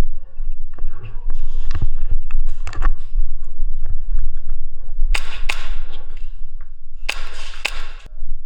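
Movement and handling noise with a low rumble, scattered clicks and knocks, and two louder bursts of hissing, rustling noise about five and seven seconds in.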